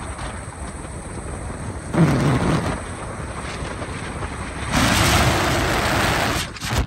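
Rushing wind and road noise of a car moving at highway speed, stepping up in loudness about two seconds in and again, loudest, near the end.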